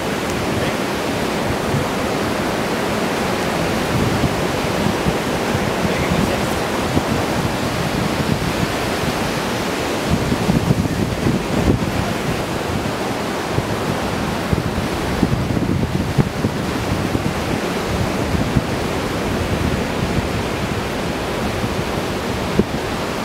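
Ocean surf breaking steadily on a sandy beach, with wind buffeting the microphone in low rumbling gusts.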